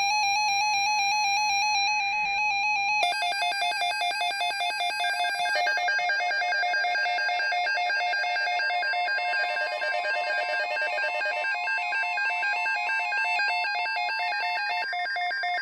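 NOAA weather radio receivers sounding their electronic alert alarms for a tornado watch: rapid warbling beeps, with a second radio's alarm joining about three seconds in. About halfway through, a steady single tone comes in as well: the broadcast's 1050 Hz weather-radio alert tone.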